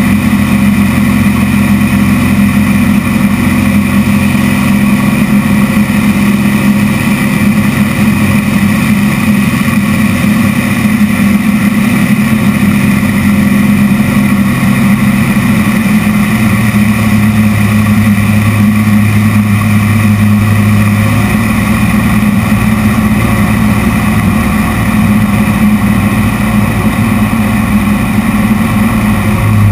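Zlin aerobatic plane's piston engine and propeller, heard from inside the cockpit as a loud, steady drone whose pitch shifts slightly about halfway through as the power changes in the manoeuvres.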